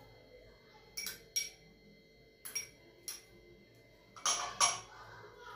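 Metal spoon clinking against a steel bowl while fruit salad is stirred: six separate clinks, the two loudest close together near the end.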